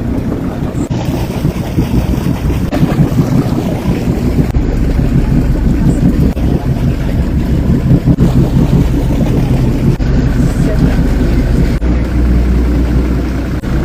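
Motorboat engine running steadily while underway, a continuous low hum and rumble.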